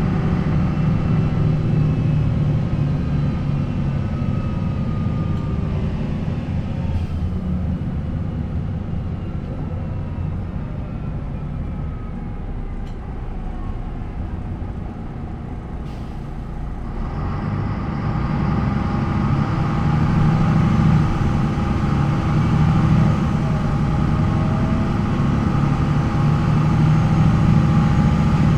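MAN NL 263 city bus's D28 diesel engine with its ZF Ecomat automatic running. The engine eases off with falling pitch for several seconds, then takes up power again and grows louder about 17 seconds in.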